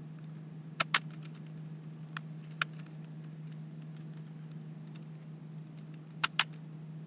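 Slow typing on a computer keyboard: a few sharp keystrokes, some in quick pairs, with fainter key taps between, over a steady low hum.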